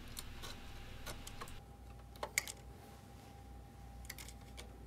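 Faint, scattered small clicks and taps of fingers handling plastic cable connectors and parts while a printer mainboard is seated in its metal frame, with a faint steady tone in the middle stretch.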